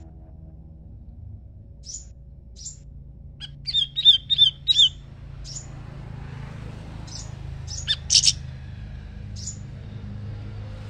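Small songbirds calling back and forth, a siri-siri raja and a crimson sunbird (sepah raja): thin high chirps, a quick run of sharp repeated notes a few seconds in, and a louder pair of calls near the end, over a steady low hum.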